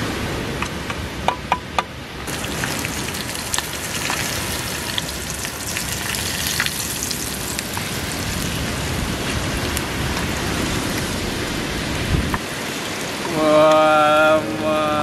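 Selar (scad) fish frying in hot oil in a small pan on a camping gas stove: a steady sizzle, with a few light metal clinks of a utensil in the first two seconds. Near the end a voice holds a short note.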